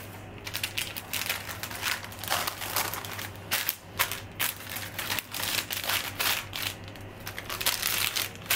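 Baking paper and plastic cling film crinkling and rustling in irregular crackles as hands fold and press them around a pizza to wrap it airtight for freezing.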